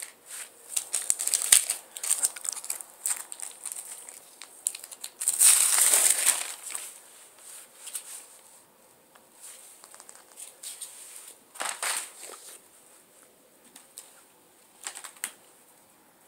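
Wrapping paper rustling and crinkling in irregular bursts as a kitten pounces on it and scrabbles at it, with one longer, louder burst about five to six and a half seconds in.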